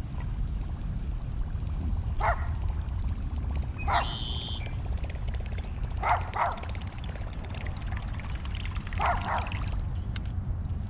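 A dog barking from a yard, single barks spaced a couple of seconds apart, some coming in quick pairs, over a steady low rumble.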